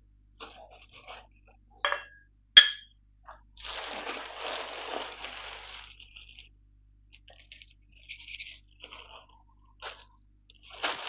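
Plastic packaging crinkling and rustling as items are handled. There is a sharp snap about two and a half seconds in, and a longer stretch of crinkling from about three and a half to six seconds.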